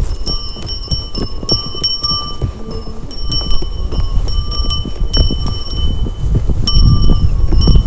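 A small bell ringing again and again at the same pitch, each strike sounding briefly at irregular intervals, over a loud low rumble.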